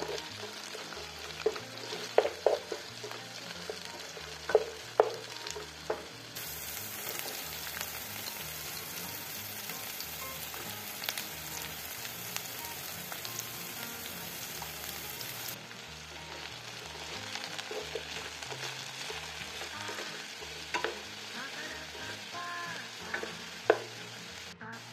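Sliced onions, green bell peppers and mushrooms sizzling as they fry in a stone-coated pan, with a spatula stirring them. The spatula knocks sharply against the pan several times in the first five seconds, and a few times later.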